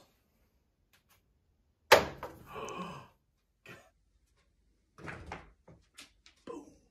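A single loud thunk about two seconds in, ringing on for about a second, then a few fainter short knocks and rustles near the end.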